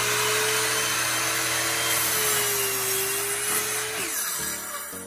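Ryobi 7-1/4 in. sliding compound miter saw running at full speed with a steady high whine while its blade is brought down through a primed pine trim board. About four seconds in the trigger is released, and the whine falls away as the blade spins down.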